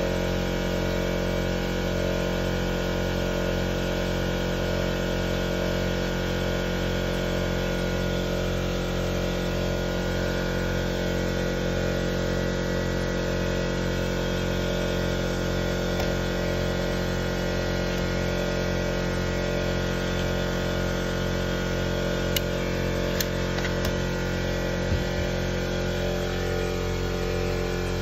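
Steady electrical hum made of several even, unchanging tones, with a few light clicks and a slight change in the tone near the end.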